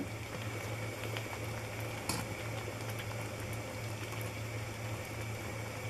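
Thick fudge mixture of sugar, condensed milk and butter boiling up in a pan, a steady bubbling with small pops, nearly at soft-ball stage. A low steady hum runs underneath.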